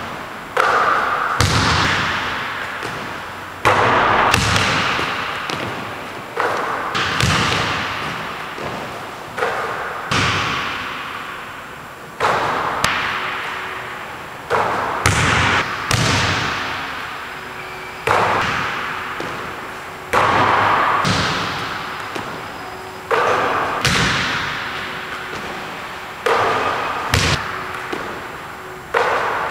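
Basketball striking the rim and backboard and bouncing on a hardwood gym floor: sharp thuds every second or two, each with a long echoing tail from the large, empty gym.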